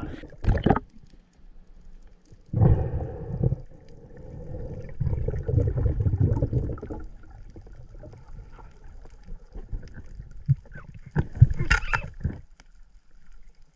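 Muffled water noise picked up by a camera underwater: a few rushes of bubbling water, a longer stretch in the middle and a brief sharper burst near the end.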